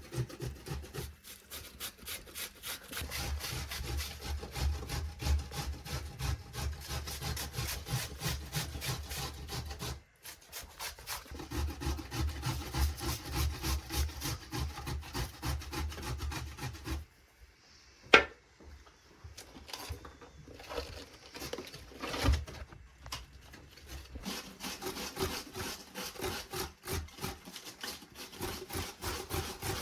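Rapid rhythmic scraping strokes, stopping briefly about ten seconds in and again about seventeen seconds in, with two sharp clicks after that and lighter strokes to follow.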